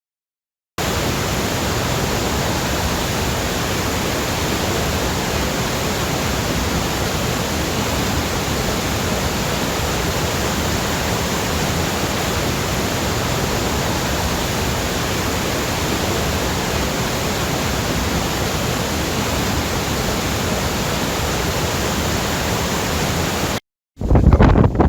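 Steady roar of a waterfall: an even rushing noise that never changes in level, starting abruptly just under a second in and cutting off abruptly near the end.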